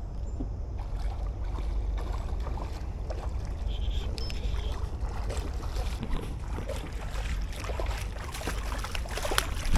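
A hooked smallmouth bass thrashing and splashing at the surface beside the boat, loudest in a sudden burst near the end. Under it runs a steady low rumble with scattered faint ticks.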